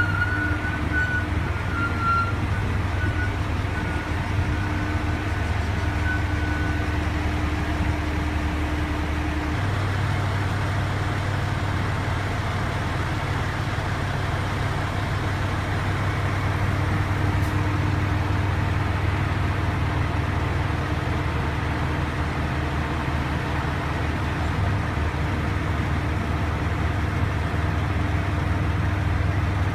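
JR Shikoku 2600 series diesel railcar's engines running steadily with a low drone, which changes about ten seconds in.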